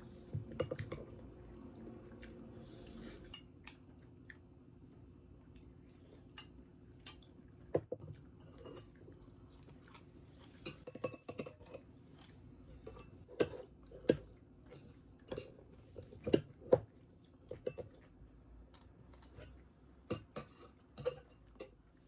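Metal spoon and metal chopsticks clinking and scraping against a bowl at irregular intervals while eating, with some chewing in between.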